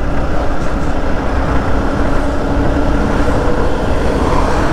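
Yamaha R15 motorcycle's single-cylinder engine running at a steady cruise, under a heavy low wind rumble on the rider's microphone.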